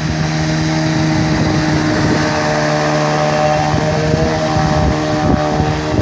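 Outboard motor on an inflatable boat running steadily at speed as it passes along a shallow river, with the rush of the river underneath.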